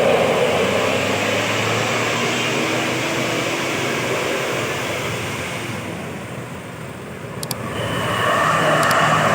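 Tour bus passing on the road, a steady rush of engine and tyre noise that fades about six to seven seconds in, then another vehicle approaching and growing louder.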